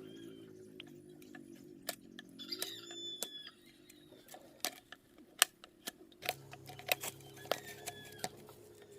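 Irregular sharp clicks and taps over a low steady hum, with a few brief high chirps about two and a half to three and a half seconds in.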